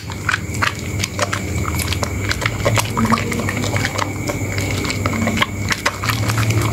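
Wet hands squeezing and kneading a soaked, softened green soap bar in a bowl of soapy water: wet squishing with many small, irregular crackles and pops of lather and bubbles. A steady low hum runs underneath.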